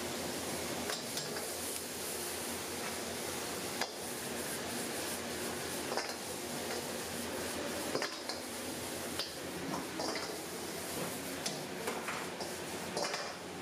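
Metal ladle clanking and scraping in a wok during stir-frying, a sharp clank every second or two, over a steady hiss from the gas burner and the frying food.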